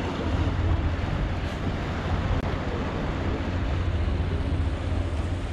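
Wind buffeting the microphone: a steady low rumble, with sea surf washing over the breakwater rocks beneath it.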